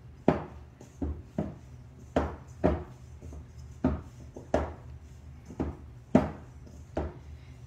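Bread dough being kneaded by hand in a stainless steel mixing bowl: about a dozen dull thumps, roughly one every half second to second, as the dough is pushed and punched down into the bowl. The dough is still soft and not yet springing back, so the kneading is not finished.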